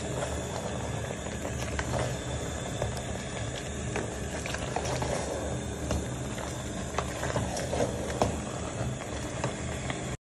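A pot of vegetable stew simmering and bubbling, with light knocks from a wooden spatula stirring it against the pot. The sound cuts off suddenly near the end.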